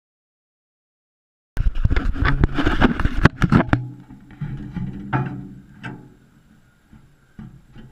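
Silence for about a second and a half, then metal clanks and knocks as a back box is hitched to a tractor's three-point linkage, loud and dense at first and thinning to a few scattered clicks.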